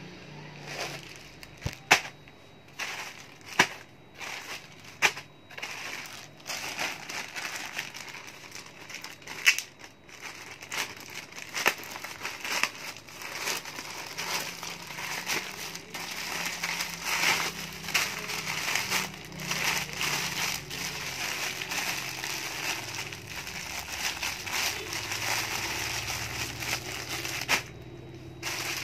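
Plastic mailer packaging being handled and opened: a few sharp snaps in the first ten seconds, then near-continuous crinkling and rustling of plastic bags that stops shortly before the end.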